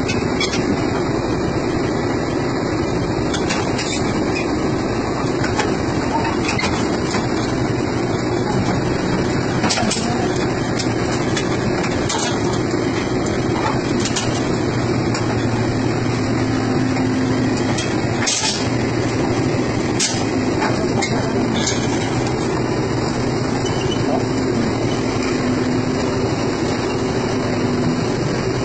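Heavy diesel engine of an old excavator running steadily, its note stepping up for a few seconds twice, with a few sharp knocks scattered through.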